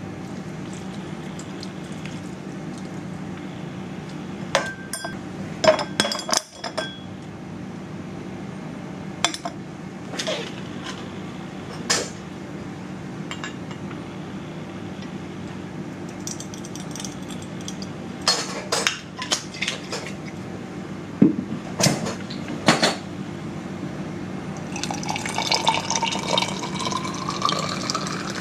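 Sharp clinks and taps of a metal jigger, bar spoon and lime against a tall glass holding a carved ice column, then near the end soda water poured into the glass, rising in pitch as it fills and fizzing. A steady low hum runs underneath.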